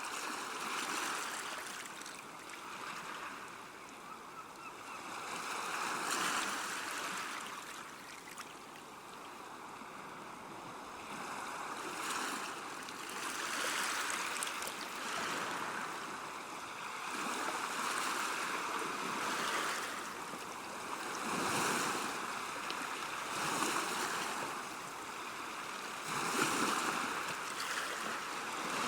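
River water washing against the bank, a steady rush that swells and eases every two to three seconds.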